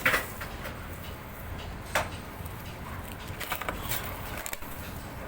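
Two sharp knocks, one at the start and one about two seconds in, with a few fainter clicks over a steady low rumble.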